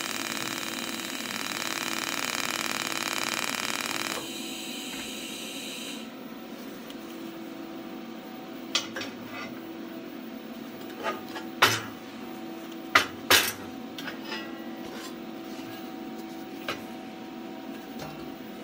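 TIG welding arc hissing steadily on steel for about four seconds, then cutting off, with a fainter hiss lingering until about six seconds. After that, a low steady hum with a few scattered sharp knocks and clicks.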